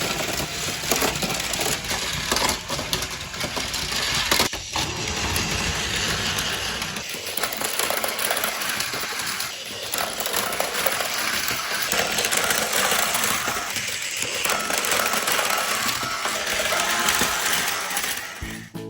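Plastic toy vehicles running on plastic track: a dense, continuous clattering and rattling of many small clicks.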